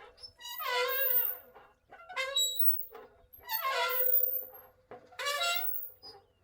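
A swing squeaking as it rocks back and forth: long and short squeaks alternate, each sliding in pitch, about one every second and a half.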